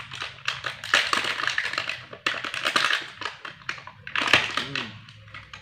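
Thin clear plastic bag crinkling and crackling in bursts as it is pulled open by hand.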